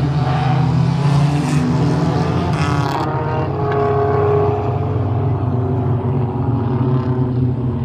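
A pack of front-wheel-drive race cars with their engines running together on the track, revving up and down as they circle.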